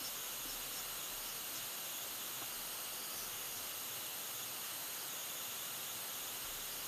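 Steady, even hiss of background recording noise, with no distinct sound events.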